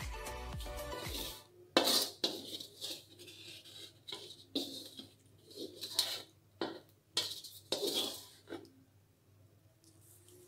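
Background music that stops about a second in, then a series of irregular clinks and knocks of a cooking pot and utensil as yellow fish broth is poured out into a ceramic bowl.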